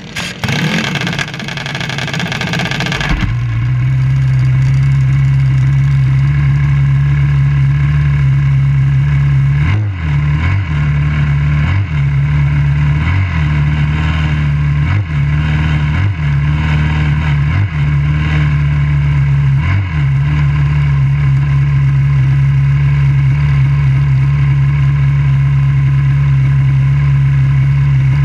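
Junior dragster's engine, recorded on board: rough and noisy for about the first three seconds, then settling into a steady idle. Between about 10 and 20 seconds in, the engine note dips briefly about eight times before returning to the same steady idle.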